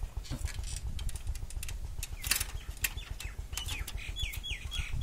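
Small clicks and rattles of a key being worked in a bicycle's wheel lock that won't open because the key is in upside down. A bird chirps several times near the end.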